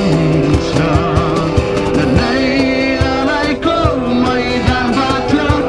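Live acoustic music: strummed acoustic guitars with voices singing a melody over them and a steady percussive beat.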